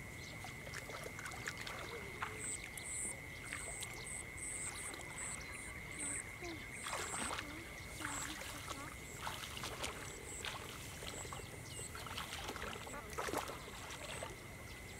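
Feet wading through shallow water in a flooded rice paddy: irregular splashes and swishes through water and rice stalks, a few louder ones.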